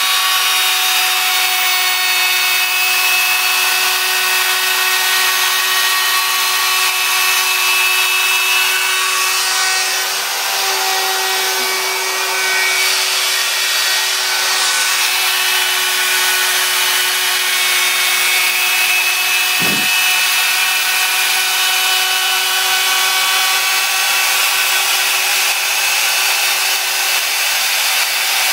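CNC router spindle cutting speaker holes into a studio-monitor baffle: a steady high whine over the noise of the bit working through the board, unchanging throughout.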